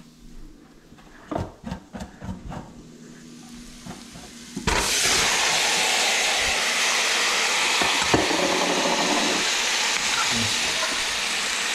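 A few clinks and knocks of utensils, then about five seconds in a loud sizzle starts suddenly as whole small fish go into hot oil and fried garlic paste in a pot, and the frying keeps on steadily with a single knock partway through.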